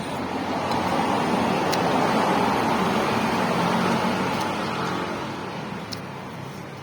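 A road vehicle passing by: a broad rush of noise that swells over the first two seconds, holds, then fades away over the last few seconds.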